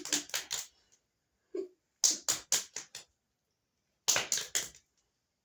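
Hands striking sharply in three quick runs of about five strokes each, the runs about two seconds apart.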